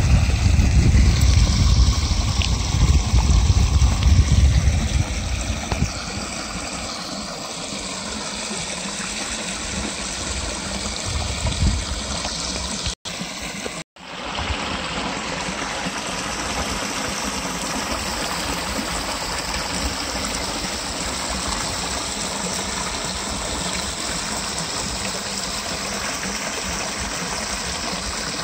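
Water spilling over a small concrete weir and rushing into the pool below, a steady rush of running water. A low rumble sits under it for the first few seconds, and the sound drops out twice briefly near the middle.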